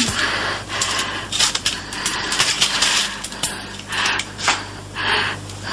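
Steady low electrical hum under a haze of hiss, with scattered soft clicks and a few short bursts of rustling noise.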